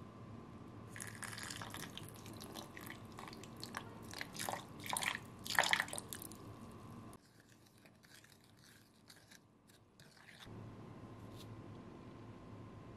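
Coffee poured from a glass mug into a glass bowl of powder and chia seeds, trickling and splashing unevenly for several seconds. It is loudest just before it stops, over a faint steady hum.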